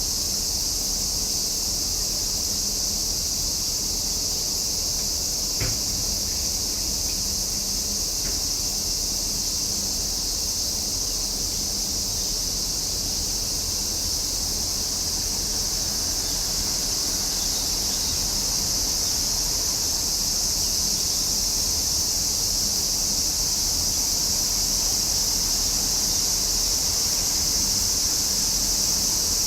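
Cicadas singing in a steady, unbroken high-pitched drone, with one faint click about six seconds in.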